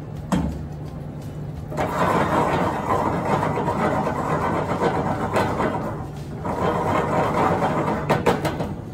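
Silicone spatula stirring shrimp through thick chili sauce in a stainless steel saucepan, giving a wet stirring noise in two long spells, with a few clicks near the end. A sharp knock comes just after the start, and a steady low hum runs underneath.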